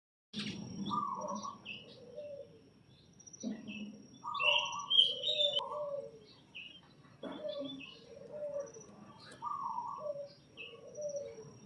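Several birds chirping and calling in short repeated phrases every few seconds: lower falling calls mixed with higher chirps.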